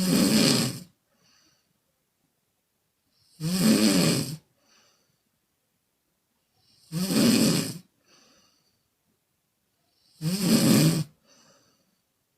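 A woman snoring: four loud snores about every three and a half seconds, each about a second long and followed by a short faint puff of breath. The snores come mainly on the breath out, blown through the mouth.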